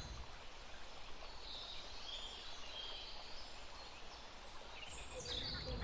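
Quiet outdoor ambience with faint, high-pitched bird calls scattered through it.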